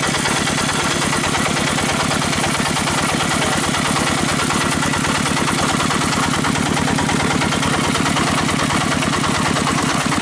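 Loud, rapid, steady chugging of a 'dompeng' single-cylinder diesel engine sound, played through a large outdoor sound system during a sound check.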